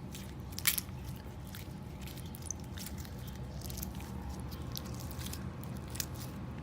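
Freshly mixed clear glue-and-borax slime being squished and kneaded by hand, making irregular wet clicks and small pops, the loudest just under a second in, over a steady low hum.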